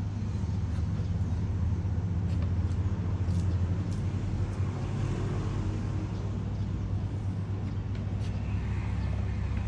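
A steady low hum, with a few faint sharp clicks scattered through it as a sulcata tortoise bites into leafy greens.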